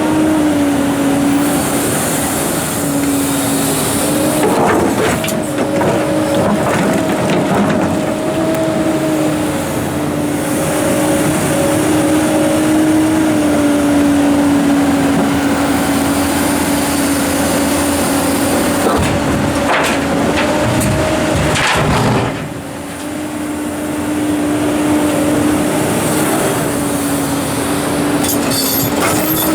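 Komatsu PC290-11 excavator's diesel engine running steadily under working load, with a steady hum that wavers slightly in pitch. A few knocks come through about five seconds in and again around twenty seconds, and the sound drops off briefly about 22 seconds in.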